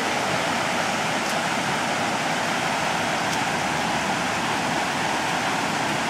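Shallow rocky stream rushing over boulders: a steady, even rush of water.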